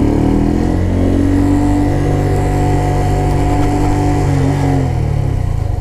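Honda Grom's 125cc single-cylinder four-stroke engine running at a steady cruising speed. Its pitch drops slightly about four and a half seconds in as the rider eases off.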